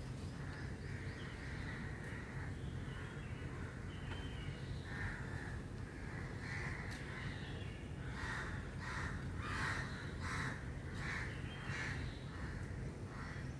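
Crows cawing, a rapid series of short harsh calls through the second half, over a steady low background rumble.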